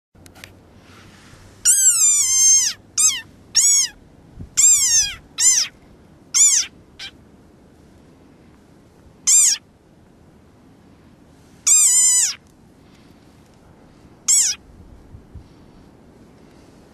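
Desert rain frog screaming: a string of shrill, squeaky calls, each rising then falling in pitch. The calls come in a quick run in the first few seconds, one long and several short, then singly with gaps of a few seconds, the last near the end.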